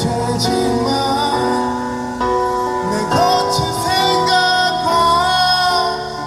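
A slow rock ballad played live through a street PA: sustained melody notes wavering with vibrato over chords and a steady bass line.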